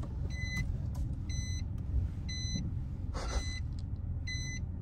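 A car's in-cabin alert beeping steadily about once a second, each beep short and high, while the car is being parked. Underneath is the low steady rumble of the car's engine and road noise.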